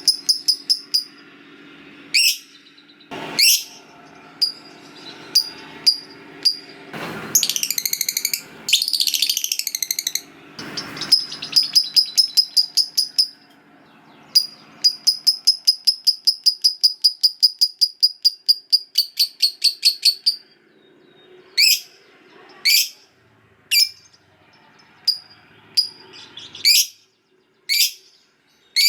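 Lovebird chattering: long runs of rapid high chips (the long 'ngekek' chatter), with a stretch of harsh buzzy calls about a third of the way in, and single sharp rising chirps near the end.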